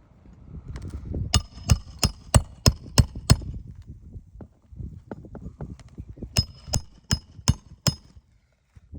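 Hammer blows on roofing nails through asphalt shingles: a run of about seven sharp, ringing strikes, roughly three a second, then after a pause of about three seconds five more, with low scuffing between.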